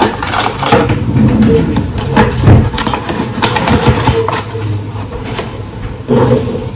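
A paper packet rustling and crinkling as it is handled, with irregular clicks and knocks, over a steady low hum.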